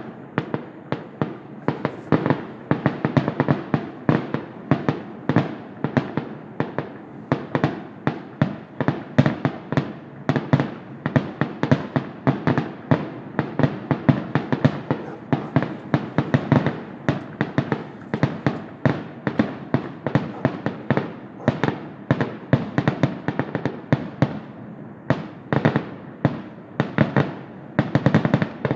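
Fireworks display: aerial shells going off in a rapid, continuous barrage of bangs, several a second, with booming echoes filling the gaps between them.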